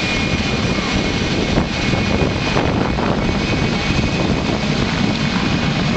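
PZL Mi-2 air-ambulance helicopter standing on the ground with its twin turbine engines running and main rotor turning: a steady high turbine whine over loud, even rotor and exhaust noise.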